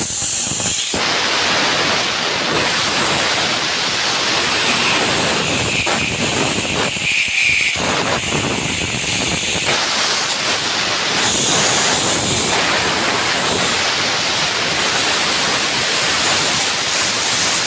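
Compressed air hissing steadily through a high-pressure fuel pump as it is blown out to clear a clog of white deposits drawn in from the fuel tank, with a few brief dips and changes in the hiss.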